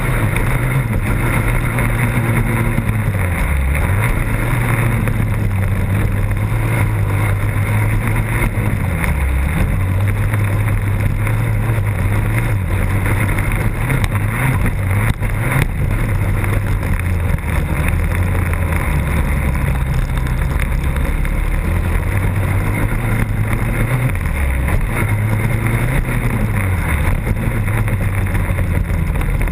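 Motocross bike engine under race throttle, heard close up from a camera mounted on the bike. The engine note drops briefly a few times as the throttle is rolled off and then climbs again.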